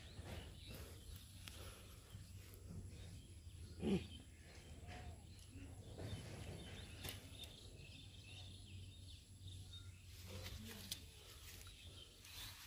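Quiet outdoor ambience: a low steady rumble with a few brief faint calls, one of them louder about four seconds in.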